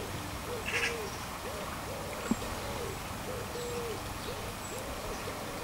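Low, soft cooing notes repeating about twice a second, over the steady trickle of a garden bubble fountain. A short higher chirp comes about a second in, and a sharp tap a little past two seconds.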